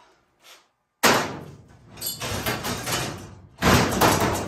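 Sheet-metal body panels of a dirt late model race car banging and rattling as they are pulled off and handled: a loud crash about a second in, clattering, then another loud bang near the end.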